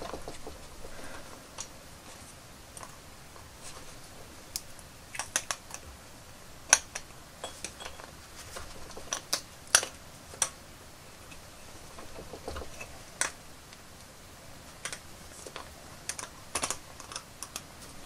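Irregular small clicks and taps of hard plastic action-figure parts and metal locking forceps being handled while a rubber leg connector is worked into a leg, with a couple of louder clicks around the middle.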